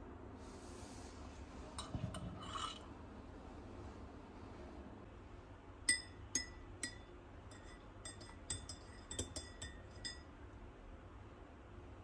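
A metal teaspoon stirs black coffee with cocoa butter added, clinking against the inside of a ceramic mug: about a dozen sharp, ringing clinks from about six seconds in to about ten seconds in. Earlier, around two seconds in, there is a short scrape and a few soft clicks.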